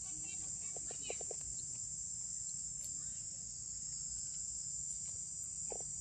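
A steady, high-pitched insect chorus drones without a break, over a faint low rumble.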